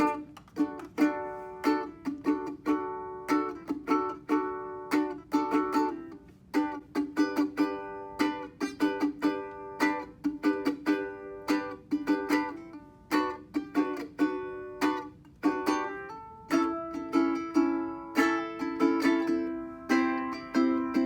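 Solo ukulele playing a song: a steady run of strummed and picked chords, each stroke ringing briefly before the next, with a change to a lower, fuller chord about two-thirds of the way through.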